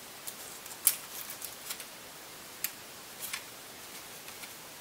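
Scattered light clicks and taps of small laptop parts being handled and fitted by hand, the loudest about a second in.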